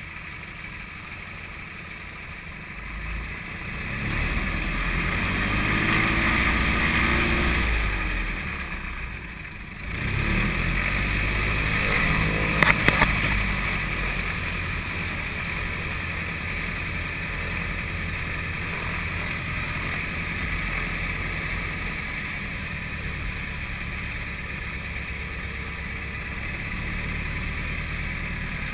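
Propeller engine of a light single-engine airplane running from inside the cockpit while it taxis. The engine speeds up about four seconds in, eases off just before ten seconds, picks up again, then holds steady. There are a few sharp clicks around thirteen seconds in.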